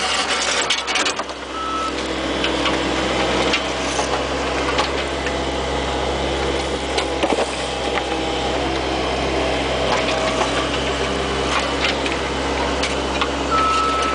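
Bobcat 430 ZHS mini excavator's diesel engine running steadily under work, with scattered knocks and scrapes. A short high beep sounds about two seconds in and again near the end.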